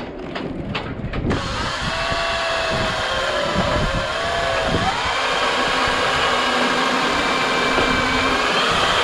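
Cordless drill boring a roughly 8 mm hole through an outboard motor's casing: after a few light ticks it runs continuously from about a second in, with a whine that wavers in pitch as the bit cuts.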